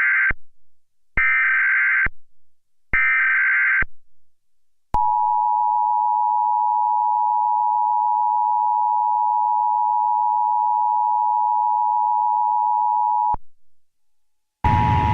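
Emergency Alert System test signals. First the SAME header data bursts: the tail of one and then two more, each about a second long, a harsh high electronic screech. Then the EAS two-tone attention signal (853 and 960 Hz sounded together) holds steady for about eight seconds and cuts off suddenly; near the end a loud noisy crackle starts with the two tones sounding under it.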